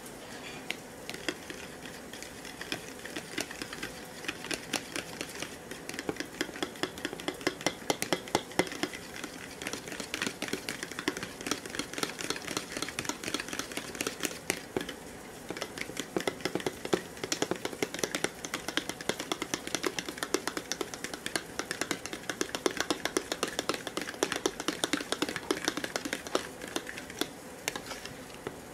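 Eggs being beaten in a bowl: rapid, steady clicking of the utensil against the bowl, with a short pause about halfway through.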